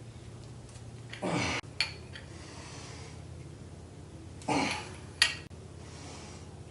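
Two hard breaths of effort, each followed by a sharp metallic clink from the ratchet and socket, as tight cylinder head bolts are forced loose with a ratchet lengthened by a pipe.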